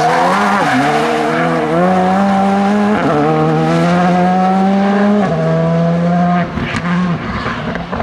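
Skoda Fabia R5 rally car's turbocharged 1.6-litre four-cylinder engine under hard acceleration, climbing in pitch through the gears with quick shifts about a second, three seconds and five seconds in. About six and a half seconds in the engine note drops as it lifts off, with a few sharp cracks, and the sound starts to fade.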